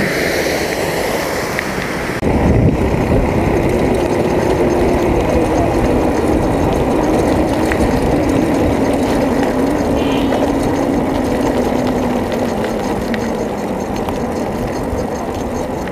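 Rushing water spilling over a roadside weir for about the first two seconds. Then it cuts to the low rumble of wind and road noise on a bicycle-mounted camera riding along an asphalt road, with a faint steady hum that slowly falls in pitch.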